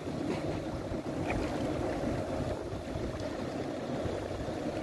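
Motorboat engine running steadily.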